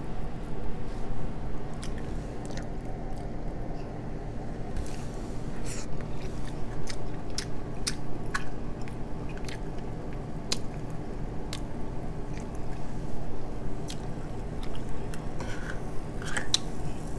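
Close-miked chewing, with scattered sharp cracks and snaps as king crab leg shell is broken apart by hand. A steady low hum runs underneath.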